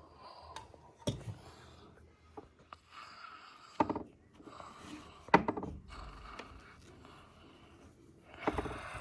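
Small plastic toy figures and furniture being handled and moved about: light scrapes, with three sharper knocks about one, four and five seconds in.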